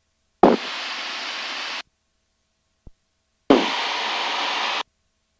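Cessna 172's headset intercom and radio audio opening and closing twice: each time a click, then a second or so of steady hiss that cuts off abruptly, with dead silence and faint clicks in between.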